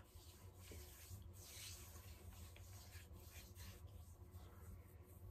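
Faint soft swishing of hands rubbing makeup-removing balm into the skin of the face, in repeated strokes over a faint low hum.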